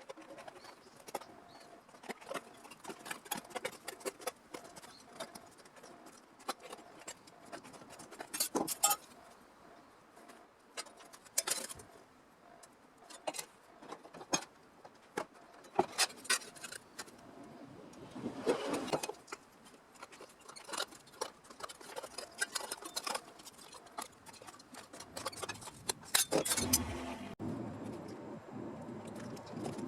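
Irregular clicks, taps and metallic clinks of hand tools and sheet-metal pieces being handled at a workbench, with a louder scraping rustle about 18 seconds in and again near the end.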